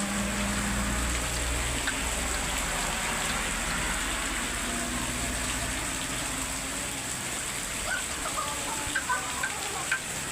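Steady rain falling, an even hiss. A low hum fades out about a second in, and a few sharp clicks come near the end.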